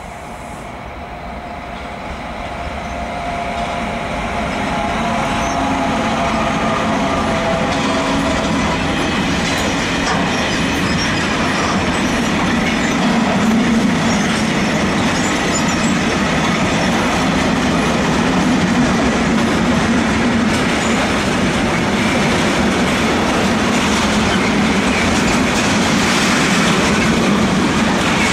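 A freight train hauled by an electric locomotive approaches and passes close by. It grows louder over the first few seconds, with a whine from the locomotive as it nears, and then its goods and tank wagons run past steadily.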